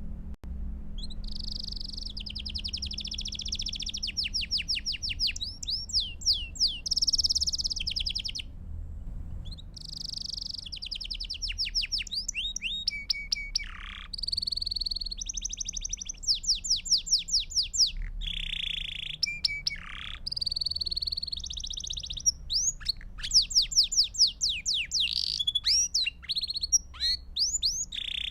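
Domestic (Belgian) canary singing a long song of rapid trills and quick repeated chirps, starting about half a second in, with a short break partway through. A faint low hum runs underneath.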